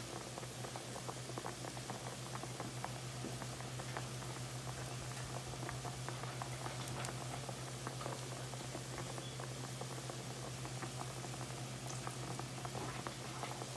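Water at a rolling boil in a large stainless-steel pan, bubbling and popping steadily, with a low steady hum underneath.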